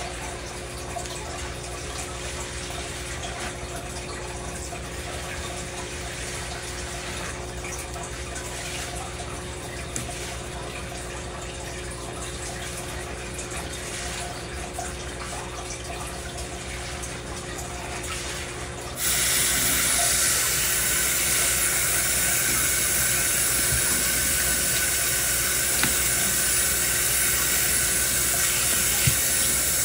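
Wet scrubbing of shampoo-lathered hair, then about two-thirds of the way through the faucet is turned on and water runs steadily over the head into a stainless steel sink, rinsing out the shampoo. A faint steady hum runs underneath.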